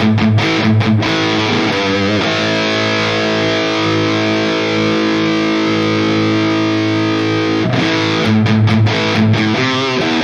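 Distorted high-gain electric guitar played through a NuX MG-30 modeling unit: short muted chugs, then a chord left ringing for several seconds, then more chugs and quick notes near the end.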